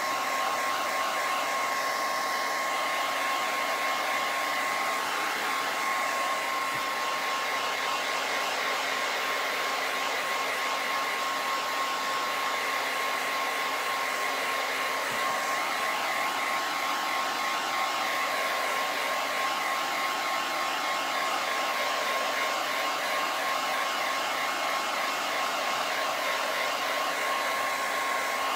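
Handheld hair dryer running steadily: a constant rush of air with a steady high motor whine.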